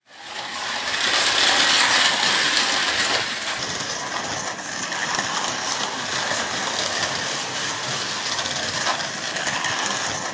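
Carrera Go slot cars running on the plastic track: a dense, steady rattle and whir that fades in from silence in the first second.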